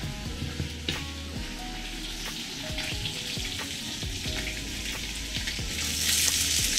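Hot oil sizzling in a small pot. About six seconds in, chopped onion goes into the oil and the sizzle grows louder as the onion starts to sauté.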